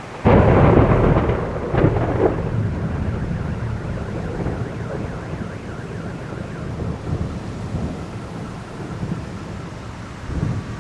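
Close thunderclap: a sudden loud crack just after the start, two more sharp cracks about two seconds in, then a long rolling rumble that slowly fades, over the steady hiss of heavy rain.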